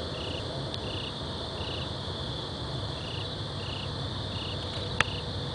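A cricket chirping steadily in short, evenly spaced chirps, about three every two seconds, with a pause of about two seconds partway through, over a low background rumble. A single sharp click near the end.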